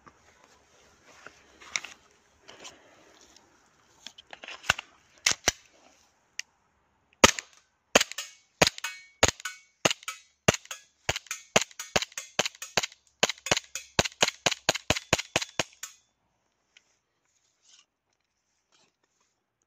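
Umarex Glock 17 gas blowback airsoft pistol firing about two dozen sharp shots, a few spaced ones first, then a quicker string at about three a second that stops suddenly.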